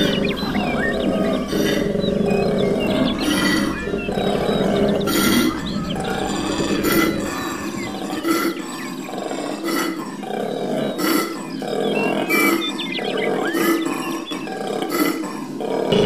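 Koala bellowing: a long run of deep, rasping grunts repeated about once a second. The lowest rumble drops away about halfway through.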